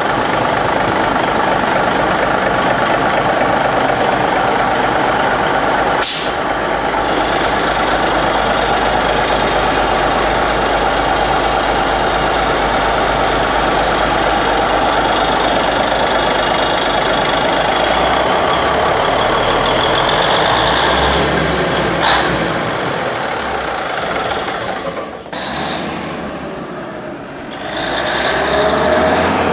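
Cummins 220 inline-six diesel in a vintage Atkinson truck running steadily at idle on its first start, with two sharp clicks. After about 25 seconds the engine sound drops back, and near the end a tone rises and then falls.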